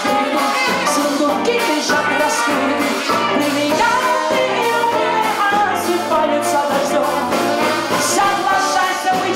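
Live jazz band music with a woman's singing voice over a steady beat.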